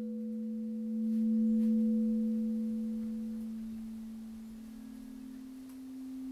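A drone of steady pure tones, one low and one higher, swelling about a second in and then slowly fading. About halfway through, a second, slightly higher low tone joins as the upper tone dies away.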